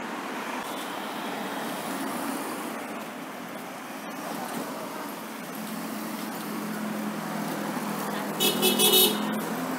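Road traffic on a wet city street: a steady hiss of tyres and engines from passing cars. Near the end come a few short horn toots in quick succession, the loudest sound.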